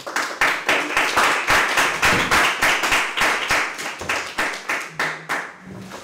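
Audience applauding by hand, a dense patter of claps that tapers off near the end.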